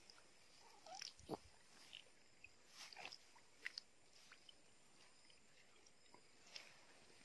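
Faint wet squelches, slaps and small splashes of hands gripping a large fish in a muddy water hole and pulling it out, as scattered short sounds with a dull knock a little over a second in.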